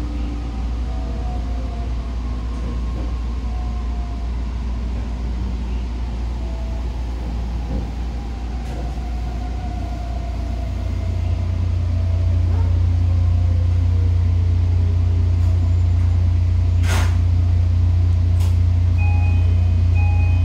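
Inside a JR Kyushu 819 series DENCHA train on the move: steady low rumble of the wheels on the rails with a faint falling motor whine. The rumble grows louder about halfway through, a sharp click comes near the end, and short repeated tones start just before the end.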